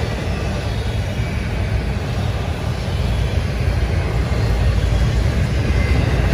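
Freight train rolling past: a steady low rumble from the cars' wheels on the rails, growing a little louder near the end.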